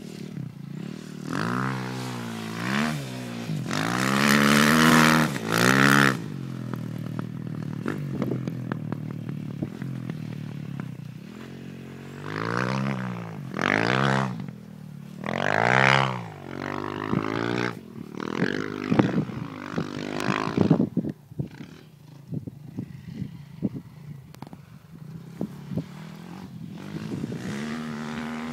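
Dirt bike engine revving hard and easing off again and again, its pitch climbing and falling with the throttle and gear changes. It runs in several strong bursts, then goes quieter and more broken for the last several seconds.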